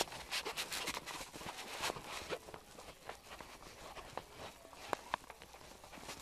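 Hurried footsteps with scattered clicks and knocks and a rustling, as people move quickly and the recording device is jostled in hand.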